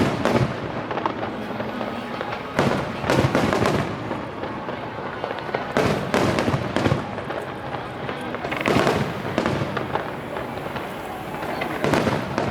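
Aerial fireworks bursting in volleys: clusters of sharp bangs with crackle, coming about every three seconds, five volleys in all.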